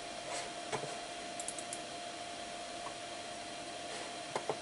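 Running Amiga 2000 computer: a steady hum over hiss, with a few light clicks, a pair shortly after the start and another pair near the end.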